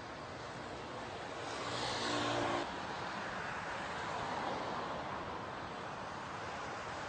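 Outdoor road-traffic noise: a motor vehicle passes close about a second and a half in, its engine hum and tyre hiss cutting off suddenly, over a steady background of traffic.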